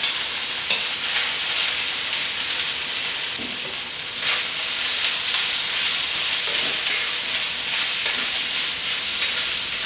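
Sliced onion, green onion and chili peppers sizzling steadily in hot oil in a pan as they are stir-fried, with a few light scrapes of the stirring utensil.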